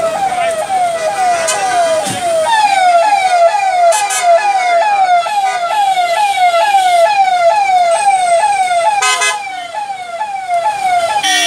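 Electronic vehicle siren sounding a fast, repeated falling wail, about two and a half sweeps a second. A car horn toots briefly about nine seconds in and starts again at the very end.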